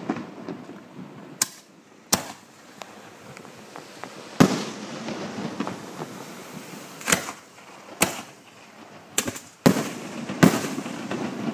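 Fireworks shells bursting at close range: about eight sharp bangs at irregular intervals, each trailing off, over a steady background rumble.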